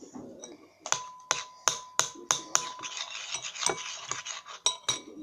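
Homemade slime being squeezed and stretched in the hands: a run of sharp snapping pops, about three a second at first and then more scattered, with a faint steady high tone under the first group.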